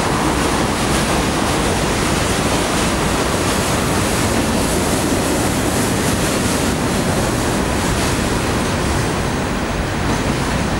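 Freight train of boxcars and autorack cars rolling past on the track, a steady noise of wheels on rail with no distinct clicks.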